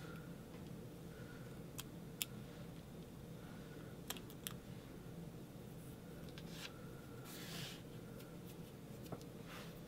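Hands handling small paper cut-outs on a work table: faint scattered clicks and taps, with a short papery rustle about seven seconds in, over a low steady electrical hum.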